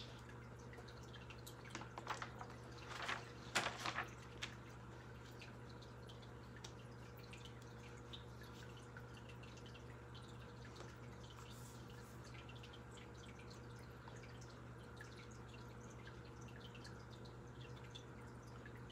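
Quiet room tone with a steady low hum, broken about two to four seconds in by a few brief, soft knocks and rustles of things being handled.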